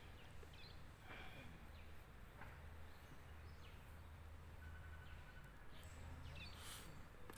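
Near silence: a faint steady low hum of background noise, with a few faint short chirps.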